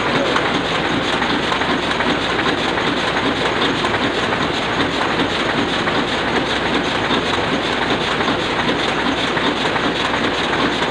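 Sakurai Oliver 66 sheet-fed offset printing press running, a loud, steady mechanical clatter that does not change.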